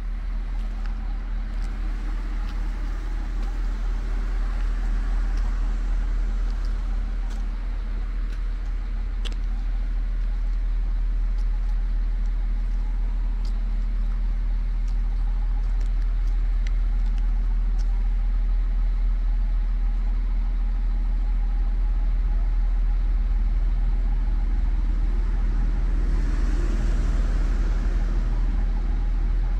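Siemens Desiro Classic (DB class 642) diesel multiple unit's engines running steadily at the platform, a constant low drone with a steady hum.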